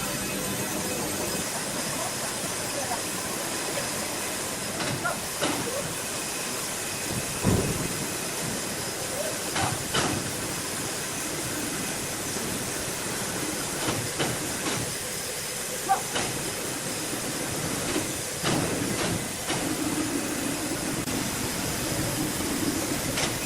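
Sawmill machinery running with a steady hiss, broken by a few sharp knocks.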